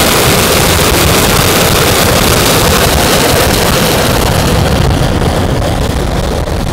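Twin jet turbines of a quarter-scale Convair Sea Dart model at high power, with the hiss of spray, as it fast-taxis across the water on its hydro-skis. The loud, steady noise loses its high end about five seconds in as the model pulls away.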